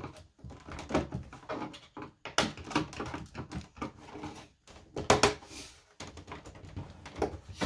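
Small screwdriver clicking and scraping against the plastic back cover of an HP computer as it is worked open, with irregular taps and plastic clicks at uneven intervals.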